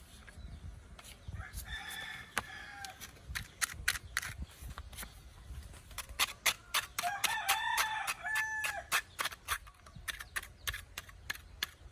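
A rooster crowing twice, about two seconds in and again around seven seconds in. Under the crows is a run of sharp clicks or taps that come fastest in the middle.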